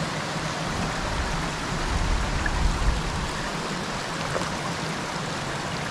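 Small woodland creek running, a steady rush of flowing water, with a brief low rumble about two seconds in.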